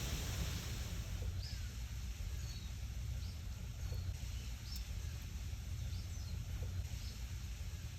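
Wind blowing through trees, leaves rustling over a low rumble, with scattered short, high bird chirps every second or so.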